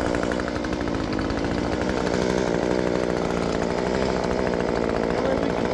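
Handheld power cutting tool running steadily at a near-constant pitch.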